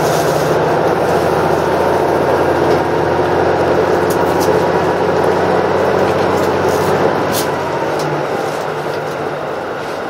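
Running noise inside a KiHa 85 series diesel railcar at speed: a steady drone of the underfloor diesel engines and the wheels on the rails, easing slightly near the end.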